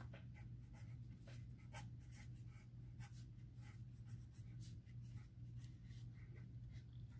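Pen writing on paper: faint, irregular scratching strokes of the tip on the sheet, over a low steady hum.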